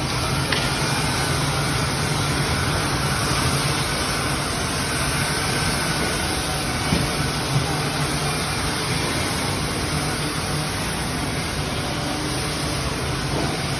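Steady hum and whir of a woodworking machine's motor running, with two light knocks about seven seconds in.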